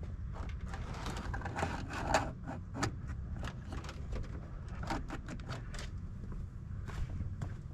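Wiring cable being pulled through the inside of a pickup truck's door, with irregular scraping, rustling and clicks as the wire and plastic parts are handled, busiest about two seconds in, over a steady low hum.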